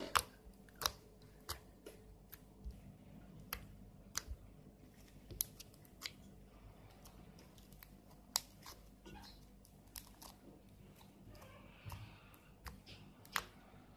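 Glossy slime with foam beads being pressed and kneaded by fingers, crackling: faint, irregular sharp pops and clicks, roughly one or two a second.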